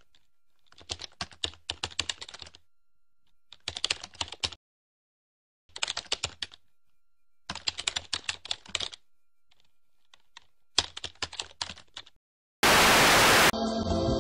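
Typing on a computer keyboard in five quick runs of key clicks, each with a short silence after it. Near the end a loud burst of static hiss cuts in for about a second, then music starts.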